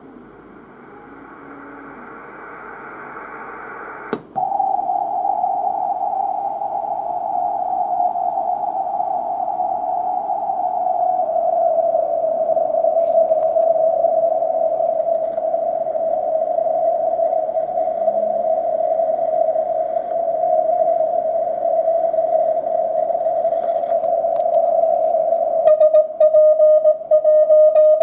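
Shortwave receiver audio from an Icom IC-R71E in CW mode near 14.06 MHz, heard through a Daiwa AF-606K audio filter. First comes band hiss, then after a click about four seconds in a single steady beat tone from a CW signal. Its pitch slides slightly lower as the receiver is retuned, and near the end the tone turns harsher with brief breaks.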